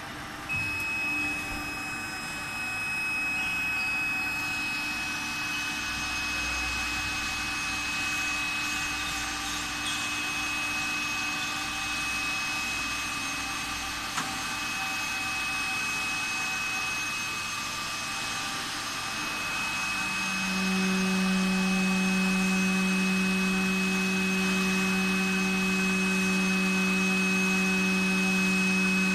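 The hydraulic power unit of a transformer core stacking table, an electric motor driving a pump, running steadily while its hydraulic cylinder tilts the table up. A steady high whine runs throughout, and about twenty seconds in a low hum comes in and the sound gets a little louder.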